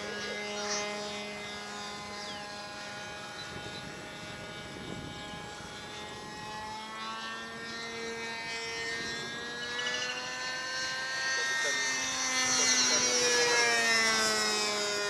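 Richmodel Spitfire 40 RC model plane's engine and propeller droning in flight, its pitch slowly falling and rising as the plane turns and passes. It grows louder about twelve seconds in as the plane comes closer.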